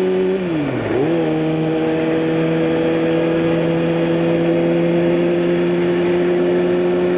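A 2009 Kawasaki ZX6R's inline-four engine running under way through a Hot Bodies Growler slip-on exhaust, with a steady engine note. About a second in, the pitch drops briefly and comes back, then holds steady.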